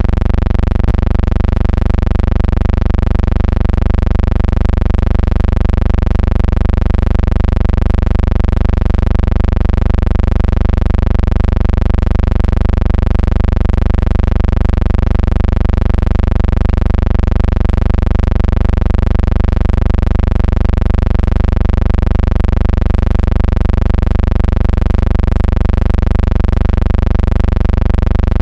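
A loud, steady low hum that does not change at all.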